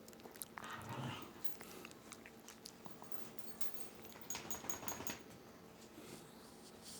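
Small dog snoring softly: two slow noisy breaths, about a second and about four and a half seconds in, with small clicking mouth sounds between them.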